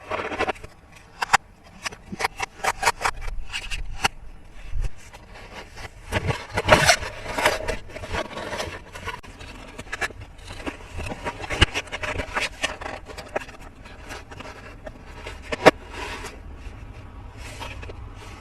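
Plastic toy playset pieces and packaging handled close to the microphone: scraping and rubbing with many small clicks and taps, busiest about six to eight seconds in, and a single sharp click late on.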